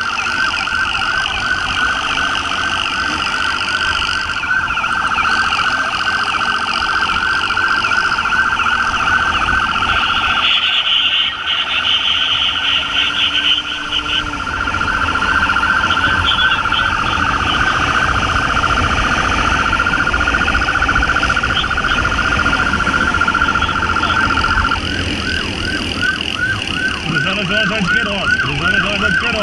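Police motorcycle siren sounding continuously in a fast warbling tone, with road and wind noise beneath. Near the end it switches to a quicker pattern of short rising chirps, about four a second.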